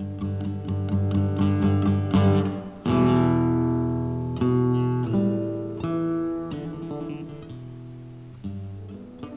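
Acoustic guitar played solo. It opens with a run of quick picked notes, then from about three seconds in plays several full chords, each struck and left to ring and fade.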